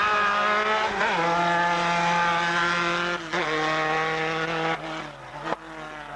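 A Formula 3 racing car's four-cylinder engine running hard on a hill climb. Its note holds steady, drops abruptly in pitch about a second in and again after about three seconds, then fades near the end.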